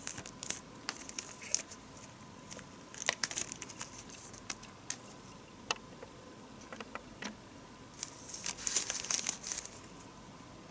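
Product packaging being handled during an unboxing: crinkling and tearing of wrapping with small clicks and taps, in three flurries with single clicks between them.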